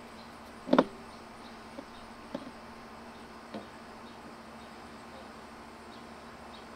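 Light knocks and clicks from handling a wire hook tool and brass fitting with masking tape: a sharp one about a second in, then three fainter ones over the next few seconds, over a steady low hum.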